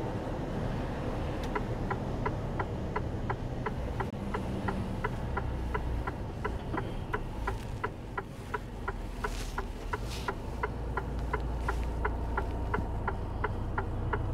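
Turn indicator of a 40-tonne Mercedes-Benz articulated truck ticking steadily in the cab, about three ticks a second, starting about a second and a half in, signalling a left turn. A steady low engine and road drone runs underneath.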